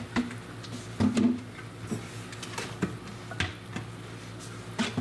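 Scattered light clicks and knocks of kitchen containers and utensils being handled, with a louder thump about a second in, over a steady low hum.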